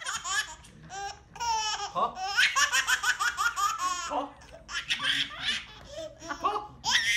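A baby laughing hard: runs of high, breathy belly laughs, one burst after another.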